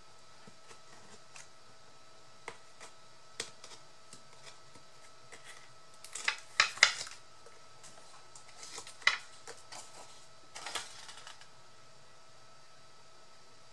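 Paper being handled and pressed into place on a work table: scattered light taps and rustles, with a cluster of sharper crackles about six to seven seconds in and single louder ones near nine and eleven seconds.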